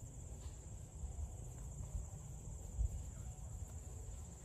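Outdoor ambience: a steady high chirring of insects, over a low, uneven rumble that is the loudest part.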